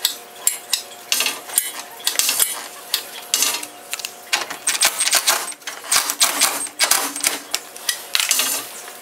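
Irregular clicks, taps and light metallic clanks from a cordless drill and metal car-body parts being handled and set against a car's radiator support.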